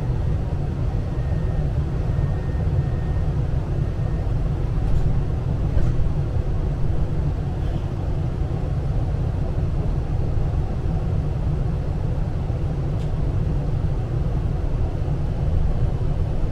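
Tram running, heard from inside the passenger car: a steady low rumble of motors and wheels on the rails, with a few faint clicks.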